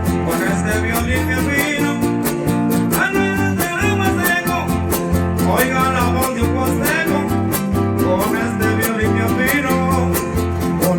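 Huapango (son huasteco) played instrumentally by a huasteco trio: a violin runs quick sliding melodic lines over the steady strummed rhythm of the jarana and huapanguera guitars.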